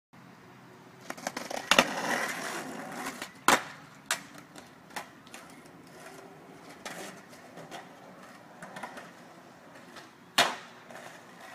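Skateboard wheels rolling on pavement, with sharp clacks of the board's tail popping and the board landing. The loudest clacks come a little under two seconds in, about three and a half seconds in, and near the end.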